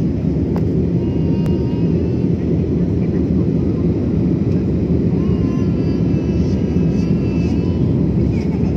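Airliner cabin noise during the climb after takeoff: the steady low rumble of the engines and airflow heard from inside the cabin at a window seat.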